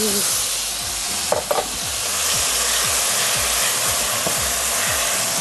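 Marinated chicken pieces sizzling in oil in a very hot nonstick frying pan, with a spatula stirring and spreading them around.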